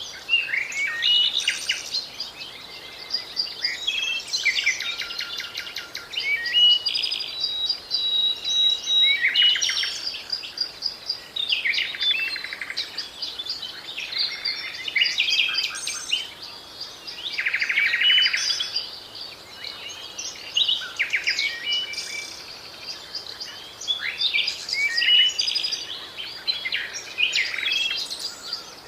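Several small songbirds singing and calling together, overlapping chirps, whistles and rapid trills that rise and fall in loudness.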